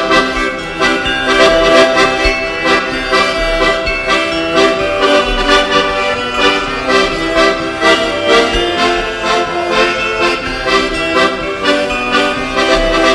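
Live traditional folk music led by an accordion, a lively tune with a steady beat.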